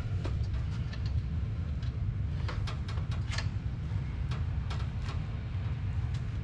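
Bench vise being cranked tight on a piece of metal: a scatter of short metallic clicks and knocks from the handle and screw, over a steady low rumble.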